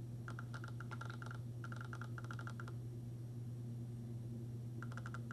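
Quiet room with a steady low hum, and faint runs of rapid small clicks three times.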